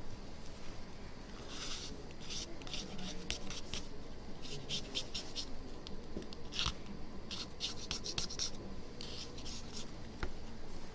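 A blade scraping glue residue off an iPhone 6 Plus cover glass in quick repeated strokes, coming in several runs with short pauses between them.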